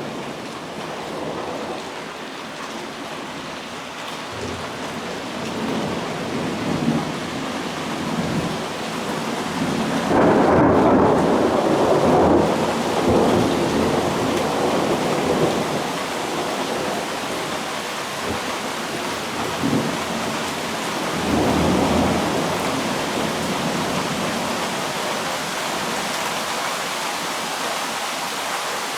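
A thunderstorm: steady heavy rain with repeated rolls of thunder, the loudest rumble starting about ten seconds in and lasting a few seconds, another about two-thirds of the way through.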